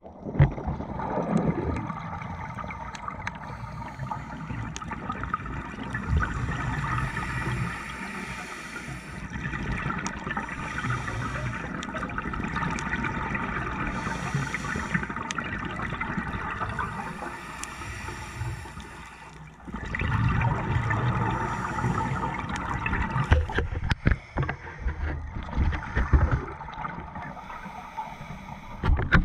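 Underwater sound of a scuba diver's regulator breathing, with surges of exhaust bubbles every few seconds and scattered clicks.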